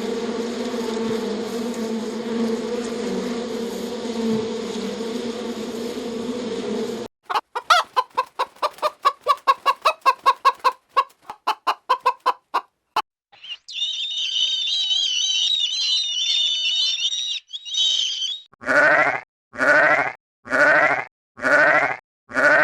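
Poultry sounds in quick succession. First a dense, steady sound for about seven seconds, then rapid clucking of about three or four notes a second, then high warbling chirps, then five evenly spaced calls about a second apart.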